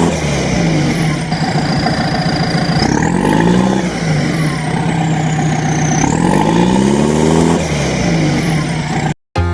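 A heavy vehicle's engine revving up and falling back several times, with high sweeping whooshes over it; it cuts off abruptly near the end.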